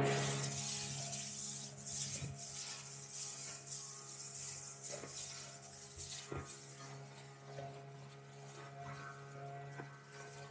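Motorboat's engine running with a steady low hum that slowly grows quieter, over a hiss of wind and water, with a few light knocks.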